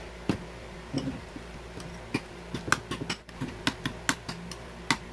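A utensil clicking and tapping against a bowl while mashed hard-boiled egg and mayonnaise are stirred together: a dozen or so irregular sharp clicks.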